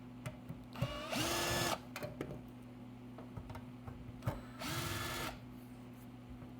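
Cordless screw gun with a hex bit backing out screws from an amplifier case, in two short runs a few seconds apart. Each time its motor whines up in pitch and then holds steady. There are light clicks of the bit and screws in between, over a steady low hum.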